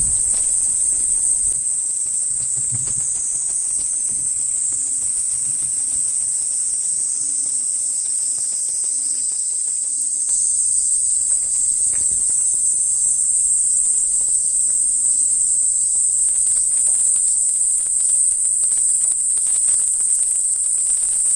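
Steady, high-pitched chorus of insects in summer woodland, with faint footsteps on the path.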